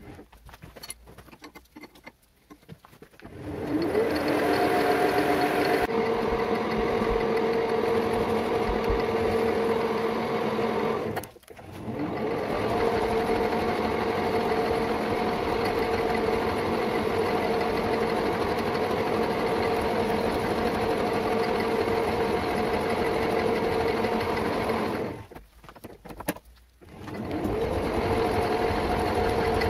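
Metal lathe running, its motor and headstock gearing giving a steady whine as it spins a workpiece held between centers. It starts about three seconds in with a rising whine as it comes up to speed, cuts out briefly near the end, and spins up again.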